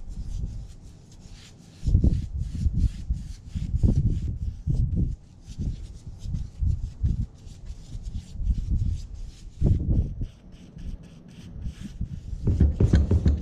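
Foam brush spreading wet oil-based polyurethane across a bare wood tabletop: a soft rubbing swish with each back-and-forth stroke, coming irregularly about one to two times a second.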